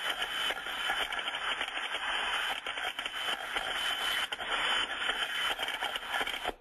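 Ultrasonic detector recording of a float and thermostatic steam trap discharging condensate continuously: a crackling, burbling noise that modulates gently in level and cuts off suddenly at the end. It is the sign of a trap working properly, passing condensate and not blowing steam.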